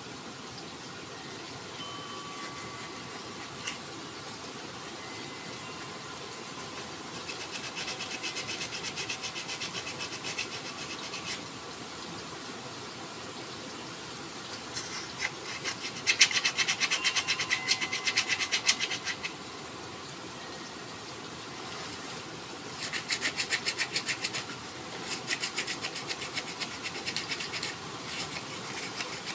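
Sandpaper rubbed by hand over a forest red gum didgeridoo, in several bursts of quick back-and-forth strokes with short pauses between them, the loudest about halfway through.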